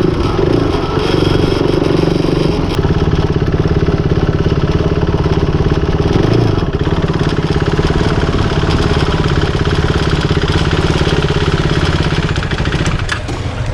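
KTM RC 390's single-cylinder engine running as the bike is ridden, its pitch rising and dipping a little with the throttle.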